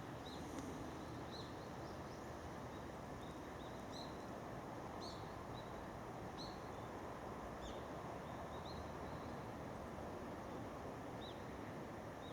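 Small birds chirping, short high calls coming irregularly about once a second, over a faint steady background hiss of outdoor noise.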